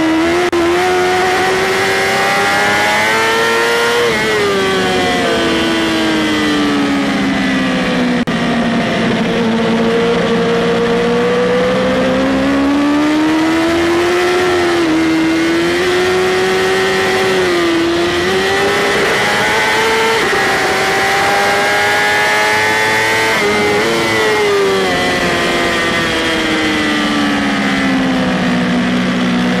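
BMW S1000RR inline-four engine heard onboard at racing speed over wind noise. Its note climbs under acceleration and sinks under braking through a run of corners, dropping in long dips about a third of the way in and again near the end.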